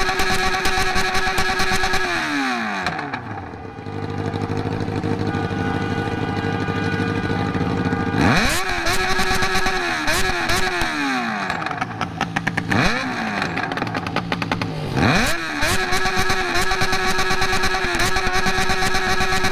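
Yamaha XJ6's 600 cc inline-four engine running through a straight pipe with no muffler. It holds steady revs, then drops off to a low idle for about four seconds. It then revs up sharply several times with short dips between, and holds steady high revs near the end.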